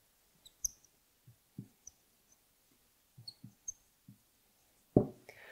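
Dry-erase marker writing on a whiteboard: faint, scattered soft knocks of the tip against the board, with a few tiny high squeaks of the felt tip. A brief vocal sound near the end.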